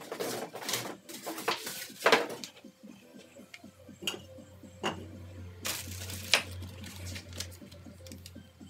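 Metal parts of a flat-packed rolling mitre saw stand clinking and knocking as they are handled, in irregular knocks with the loudest about two seconds in.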